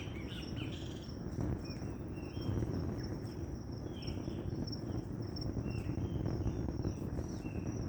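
Songbirds chirping, short falling calls repeating every second or so, over a steady pulsing high trill typical of crickets or other insects, with a low rumble underneath.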